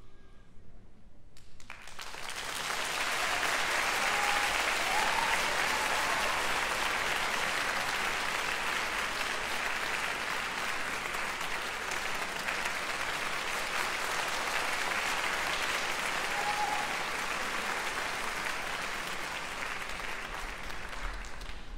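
Theatre audience applauding at the end of a dance performance: the clapping starts about a second and a half in as the music stops, swells over a couple of seconds and then keeps up steadily.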